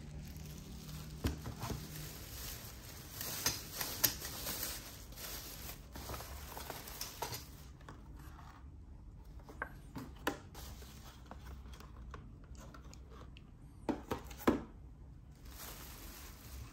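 Thin plastic carrier bag rustling and crinkling while plastic food containers are lifted out and handled, with scattered sharp clicks and knocks of the rigid packaging, the loudest a pair about two-thirds of the way through.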